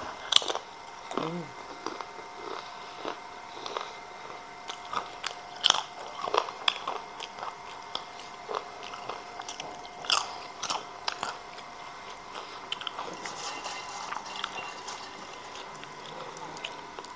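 Close-up crunching and chewing of crisp fried breadfruit chips, in irregular sharp crunches a second or so apart.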